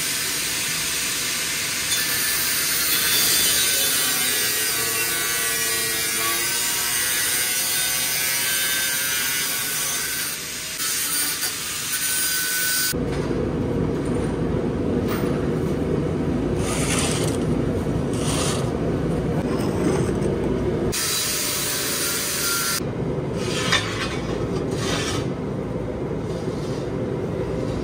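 Metabo flat-head angle grinder grinding the steel trailer frame clean, preparing it for welding. It runs continuously; about halfway through the sound turns rougher and lower as the disc bites into a different spot, and briefly goes high and bright again near the end.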